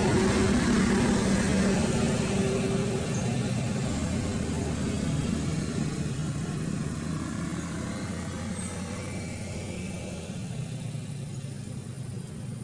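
Steady rumble of a passing engine, fading slowly away.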